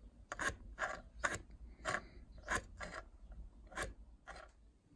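Handling noises: about seven short, irregularly spaced clicks and scrapes as test equipment is handled, over a faint low hum.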